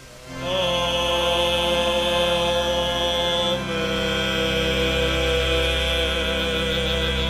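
A sung two-note "Amen" closing a hymn. Each note is held long and steady, the second starting about halfway through.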